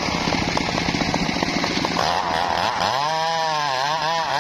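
Two-stroke chainsaw engine running, its pitch rising and falling near the end as the throttle is worked.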